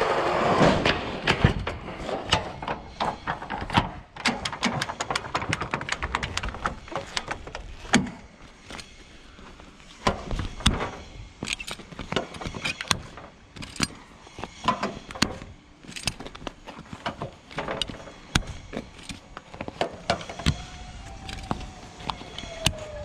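Side curtain of a curtainsider trailer being fastened. The curtain's runners rolling along the rail die away in the first second. Then metal strap buckles clack and click irregularly as they are hooked under the trailer edge and levered tight.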